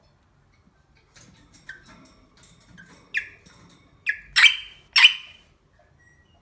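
A small animal making a run of short squeaks and squawks that grow louder, the two loudest near the end, with faint rustling between the calls.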